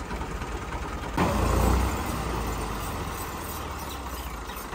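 Massey Ferguson tractor's diesel engine running at idle while its tipping trailer's bed comes down, with a sudden louder surge about a second in that lasts under a second.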